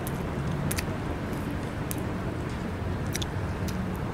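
Chewing a mouthful of breaded spicy chicken sandwich: a few short, soft crunches about once a second over a steady low rumble.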